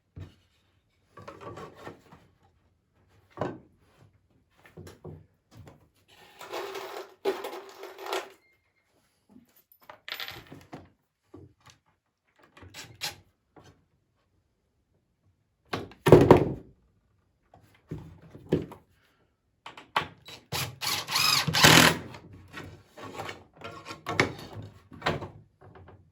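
Wooden swing parts knocking and thunking as they are handled and fitted, with one heavy thump about midway. A power driver runs briefly twice, setting screws.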